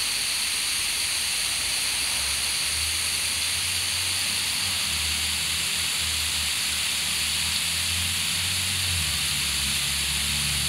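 Garden hose spray falling on a grass lawn: a steady, even hiss of water.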